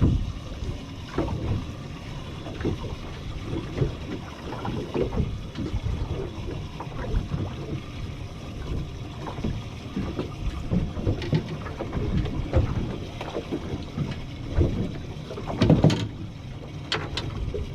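Water slapping against the hull of a Parker 2320 fishing boat in irregular low knocks, with a few sharper knocks and clatters near the end.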